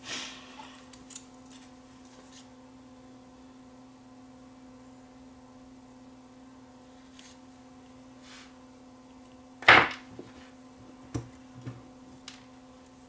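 Quiet workbench handling while a wire is soldered onto a small battery pack. A faint steady hum runs throughout, with a few light clicks, one sharp knock about ten seconds in and a few smaller taps after it.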